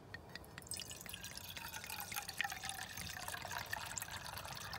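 Red wine poured from a glass bottle into a metal camping mug, the pour starting under a second in with many small splashes as the mug fills.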